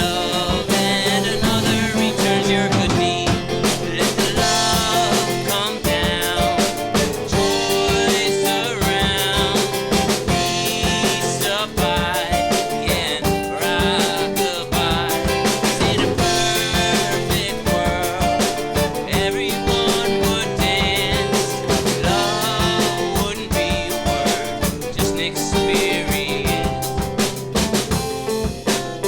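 Background music: a song with drum kit, guitar and singing, with a steady beat.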